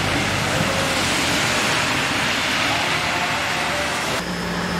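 Steady hiss of heavy rain mixed with traffic on the wet road, tyres hissing through the water. About four seconds in, the sound cuts abruptly to a steady low hum.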